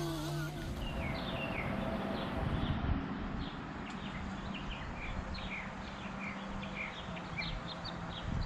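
Small birds chirping outdoors: a quick series of short, falling chirps, about three a second, over a low steady background rumble, with the tail of background music fading out at the start.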